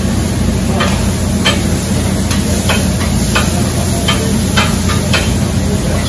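Metal spatula scraping and chopping steak meat on a flat-top griddle, short strokes about two a second, over sizzling and the steady hum of the kitchen exhaust hood fan.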